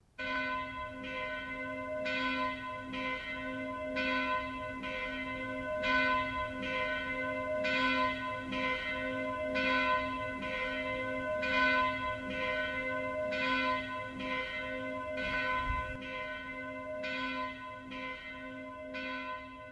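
Church bells ringing, a fresh stroke about once a second over a long ringing hum. They grow a little fainter in the last few seconds.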